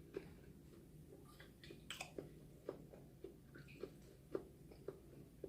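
Faint chewing while eating: soft mouth clicks and smacks at irregular intervals, about two a second.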